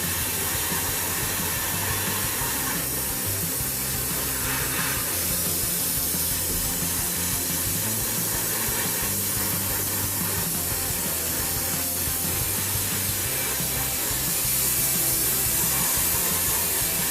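Airbrush spraying paint: a steady hiss of air and paint mist that grows stronger near the end, over background music.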